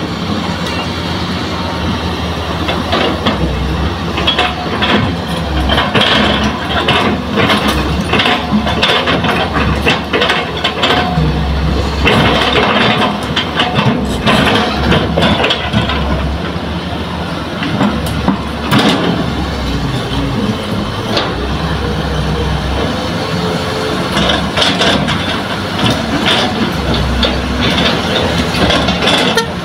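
Hitachi hydraulic excavator's diesel engine running under load as it digs earth and loads dump trucks, with frequent clanks and knocks from the bucket and the soil.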